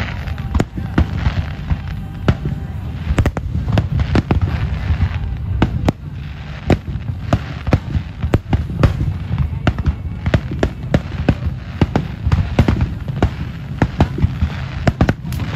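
Aerial fireworks display: shells bursting in a rapid, uneven string of sharp bangs, several a second, over a steady low rumble.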